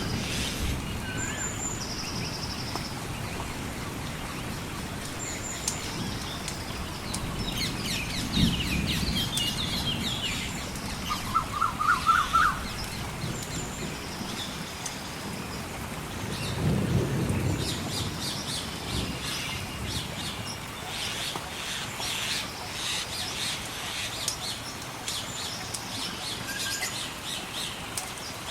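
Mixed storm-and-nature ambience: a steady hiss of rain with two low rumbles of distant thunder, birds chirping throughout, and one loud, quick trill near the middle. In the second half a fire crackles with many small snaps.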